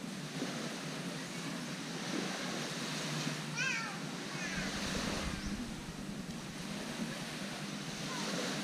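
Beach ambience: a steady wash of gentle surf, with a brief high-pitched call about three and a half seconds in and a low rumble around the middle.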